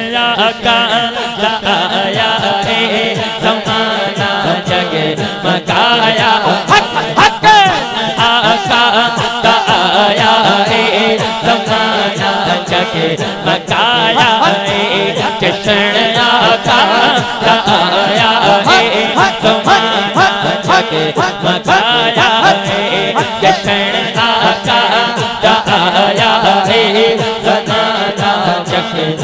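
Men's voices chanting the refrain of a Punjabi naat in chorus with the lead reciter, loud through a public-address system.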